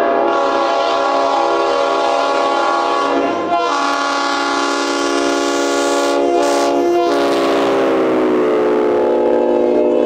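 Leslie S5T and Leslie RS5TRRO five-chime locomotive air horns sounding long, continuous chords. The chord changes abruptly about three and a half seconds in and again about seven seconds in, then dips slightly in pitch and settles.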